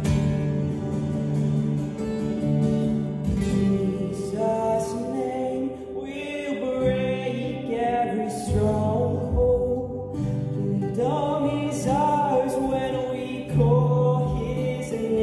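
Acoustic guitars strummed in a slow worship song. A male voice starts singing the melody about four seconds in.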